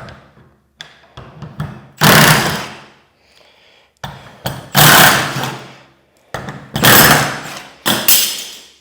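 Milwaukee M12 cordless impact wrench hammering hinge bolts into a garage door in about four short bursts, each starting suddenly and fading. It is pulsed briefly rather than run down to full torque, since it is a high-torque automotive tool.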